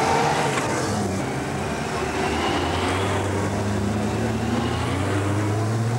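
Honda Gold Wing touring motorcycles riding past one after another at low speed. The pitch of one drops as it passes; then a low, steady engine note with a rising pitch as the next one pulls through.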